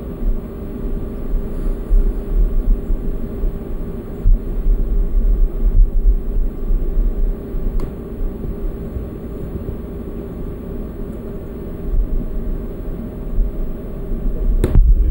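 Wind buffeting the microphone in irregular low gusts over a steady hum, with a sharp click near the end.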